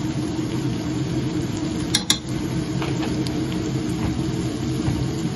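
A steady low mechanical hum, with two sharp clicks about two seconds in as a spoon taps against the spice jar while turmeric is added.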